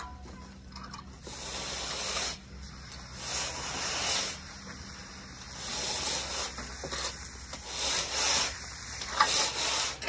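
Concrete floats scraping across freshly poured wet concrete in about five separate strokes, each lasting about a second.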